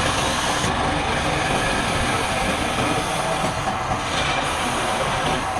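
A woodworking power tool running steadily, a dense even hiss with a faint hum and no pauses or distinct impacts.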